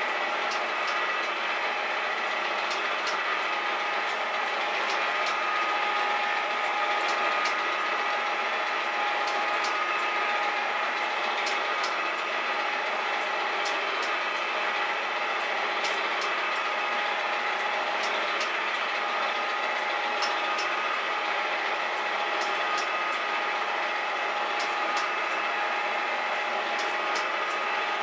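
Metal shaper running and cutting a slot in a steel conveyor roller: a steady whine from its gear drive, with sharp ticks every second or so as the ram works through its strokes.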